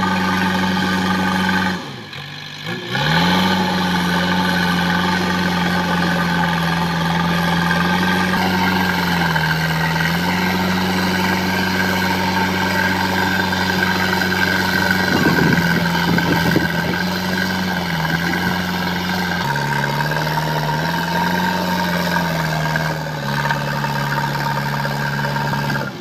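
JCB 3DX backhoe loader's diesel engine running steadily, its pitch stepping up and down several times as the machine works. About two seconds in the sound dips briefly, then the engine note rises back up.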